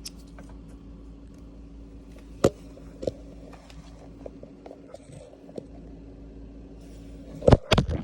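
Scattered clicks and knocks of dishwasher door hardware being handled as the door spring's cord is pulled around its pulley and hooked up, with a louder clatter near the end, over a steady hum.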